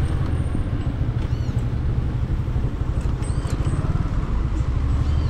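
Steady low rumble of a vehicle in motion, with a few faint, short high-pitched chirps.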